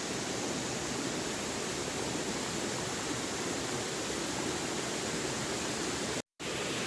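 Steady rushing water noise, with no separate events in it, that drops out to silence for a split second about six seconds in.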